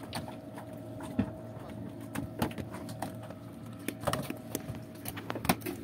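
Irregular knocks and slaps of skipjack tuna being handled and tossed onto the catch in wooden boats, with a faint steady hum underneath.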